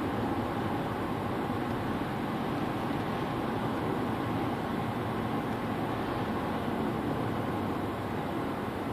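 Steady cabin noise inside a Volkswagen Jetta Hybrid at about 70–80 km/h: road and wind noise mixed with the climate-control air blower. The hybrid powertrain itself is quiet while the car recuperates, charging its battery.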